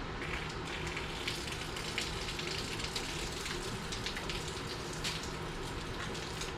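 Water from the supply running and spattering out of a Sun Joe pressure washer's hose and gun with the wand removed and the pump off. It flows freely, which the owner takes to mean the clog is only in the wand.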